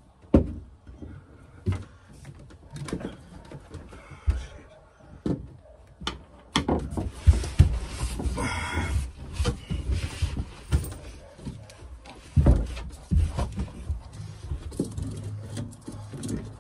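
Irregular knocks, bumps and handling noises as a green corrugated plastic hose, softened with boiling water, is worked and pushed onto a fitting by hand, with a brief rustling scrape a little past the middle.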